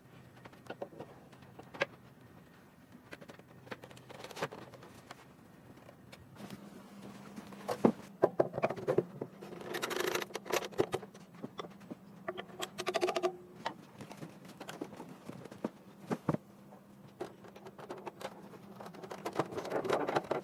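Scattered light taps, clicks and small scrapes of hand work on shrine parts, with some metallic clinking, over a faint steady hum; the tapping grows busier and louder about halfway through.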